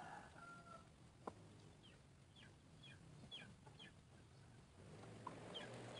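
Quail giving faint short falling chirps, about six in quick succession, then one more near the end. A single sharp click sounds just over a second in.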